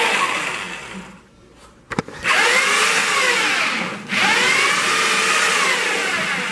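Electric drill with a mixing paddle churning cement-based tile adhesive in water, run in bursts. A short run at the start, a knock about two seconds in, then two runs of about two seconds each with the motor's pitch rising and falling as it speeds up and slows.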